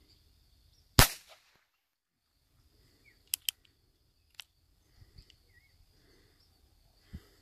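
A Mendoza derringer 4.5 mm air pistol fires a single sharp shot about a second in. A few fainter sharp clicks follow.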